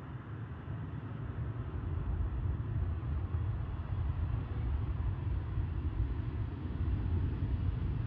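Steady low rumble of an Airbus A321-231's IAE V2500 turbofan engines on landing approach, growing slightly louder.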